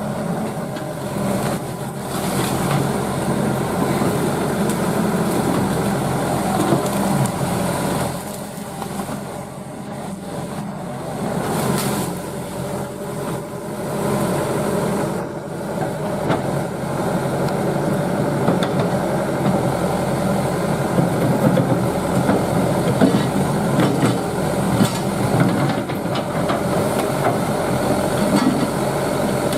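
Excavator's diesel engine running steadily under load with a constant whine, and scattered sharp cracks and knocks.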